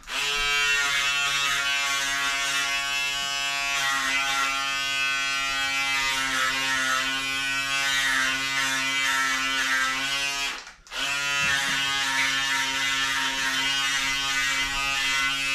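Handheld electric shaver buzzing steadily as it is run over the neck. It cuts out briefly about eleven seconds in, then buzzes again until just before the end.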